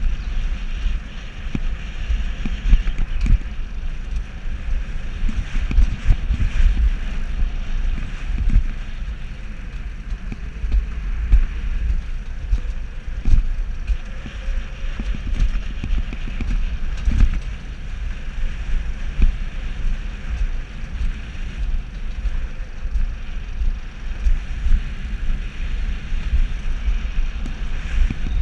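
Alpine coaster sled running down its steel rail track: the wheels rumble and rattle over the rails with frequent short knocks, and wind blows on the microphone.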